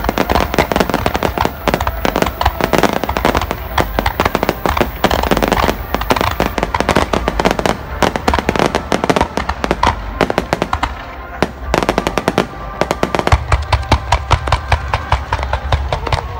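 Rapid barrage of aerial fireworks: many shells bursting and crackling in quick succession, dozens of bangs packed closely together, with heavier low booms in the last few seconds.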